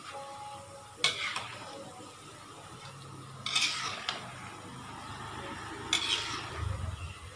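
Metal spoon scraping and stirring through a wok of tapioca-dough snacks frying in hot oil, over a steady sizzle. Three scrapes stand out: about a second in, midway, and near the end.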